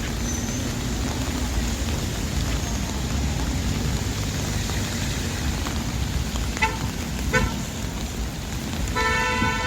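Steady hiss of rain and city traffic on wet streets. About seven seconds in, a car horn gives two short beeps, then a longer horn blast starts near the end.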